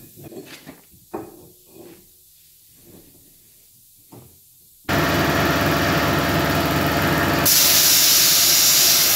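Faint knocks and clatter of garage work, then about five seconds in a sudden loud, steady hiss of a sandblasting gun with a mechanical hum underneath. Some two and a half seconds later the hiss turns harsher and higher as the abrasive blast hits the inside of the wheel arch.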